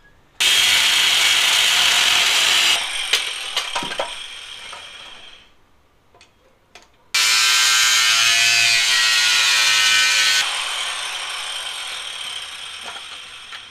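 Angle grinder cutting into aluminum angle stock, run twice for about two to three seconds each time. After each cut it is switched off and the disc winds down, fading over a few seconds.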